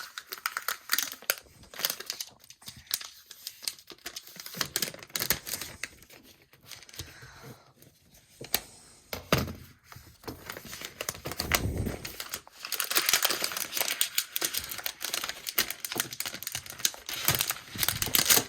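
Paper wrapping being peeled, crinkled and torn off a new Apple Magic Keyboard, with a couple of dull thuds around the middle; the crinkling is densest and loudest in the last third.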